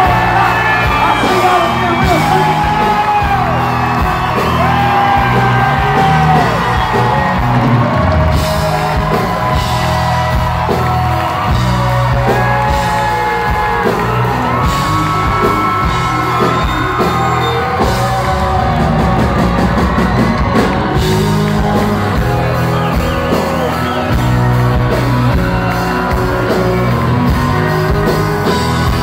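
Live country band playing loudly, with pedal steel, electric bass and drums, as heard from within the crowd in a large hall. Singing and whoops ride over the band.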